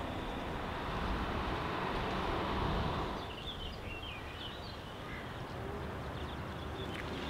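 Outdoor ambience: a steady low rumble of background noise that swells for a couple of seconds, with a few short high bird chirps between about three and five seconds in.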